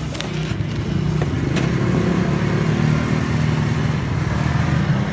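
A motor engine running steadily with a low hum, growing louder in the first second and then holding.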